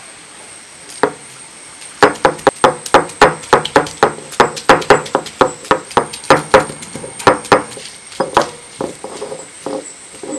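Shallots being crushed with a stone roller on a wet stone grinding slab: one knock about a second in, then a fast run of sharp stone-on-stone knocks, about three a second, that turn lighter and sparser near the end.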